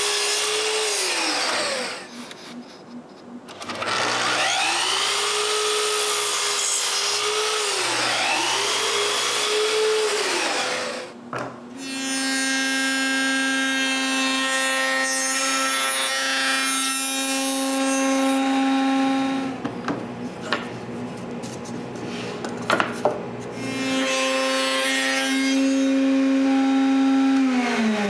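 A Festool KS 120 EB miter saw running for the first eleven seconds, its whine sagging in pitch each time the blade cuts through a wooden rail, with a short lull near the start. From about twelve seconds in, a router table runs with a steady, high hum while rail ends are passed over the bit to cut tenons; it eases off briefly past the two-thirds mark.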